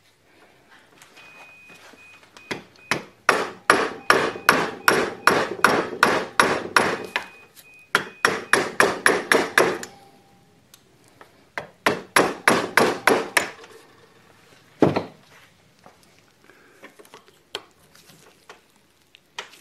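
Rapid hammer taps, about four a second, knocking at the old, hardened oil seal in a Morris Minor rear axle hub to drive it out. There are two runs of taps and then one heavier single blow.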